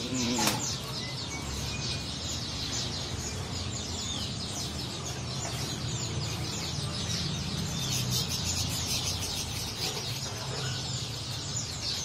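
Many caged birds chirping and chattering at once, a dense run of quick high calls, over a low steady hum.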